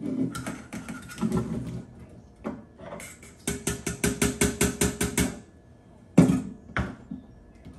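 Potato chunks tipped from a stainless steel mixing bowl into an air fryer roasting basket, the metal bowl clattering against it. Midway, the bowl is rapped about a dozen times in quick succession, ringing, to knock the last pieces out, followed by a single sharp knock.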